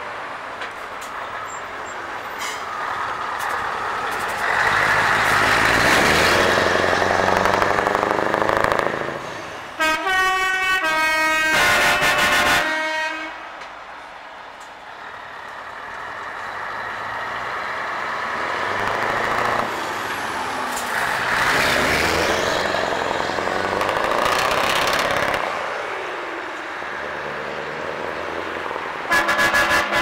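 Scania 143 V8 trucks driving past one after another, their engine sound swelling as each comes close and then fading. A truck's air horn blows a steady note for about three seconds near the middle, and short horn blasts follow near the end.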